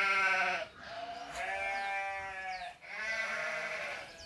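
Three long, drawn-out bleating cries, each holding a fairly steady pitch. The first is short and loudest, and the second is the longest.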